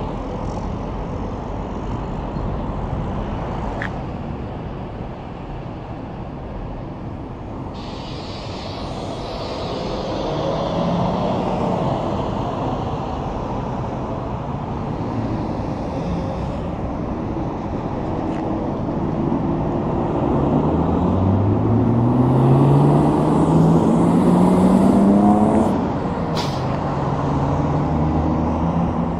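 Highway traffic with big rigs passing: tyre and engine noise that swells and fades as vehicles go by. From about 20 seconds in, one engine climbs steadily in pitch as it accelerates. It is loudest just before it drops away, about 26 seconds in.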